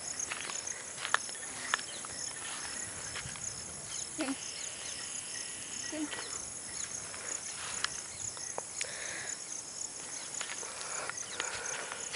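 Insects chirping in a steady, fast, even pulse, with a few sharp clicks and knocks on top, the loudest about a second and two seconds in.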